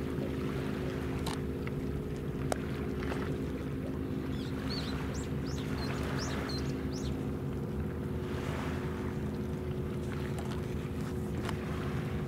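Ship's machinery humming steadily, a low drone made of several steady tones. A few short, high chirps come in the middle, along with some faint clicks.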